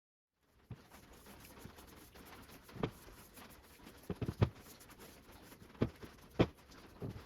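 Irregular knocks and taps of oak pieces being handled and set down on a workbench: a quick cluster of knocks about four seconds in, and single sharp ones near three, six and six and a half seconds in.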